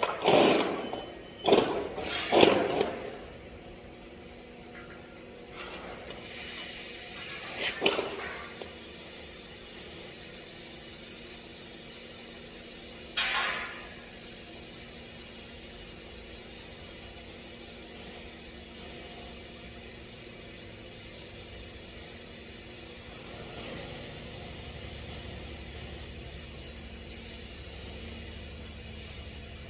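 A few loud knocks and scrapes, then from about six seconds in a steady high hiss, typical of a TIG welding arc on stainless steel.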